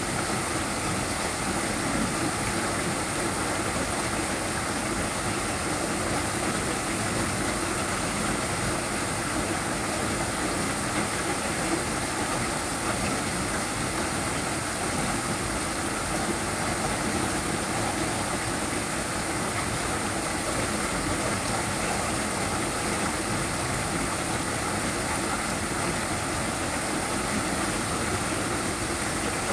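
Small waterfall: water falling and splashing in a steady, unbroken rush.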